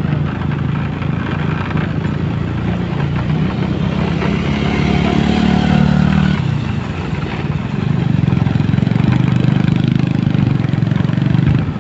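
Motorcycle engine running while being ridden. The engine note rises and strengthens a few seconds in, eases off about six and a half seconds in, then pulls hard again from about eight seconds in.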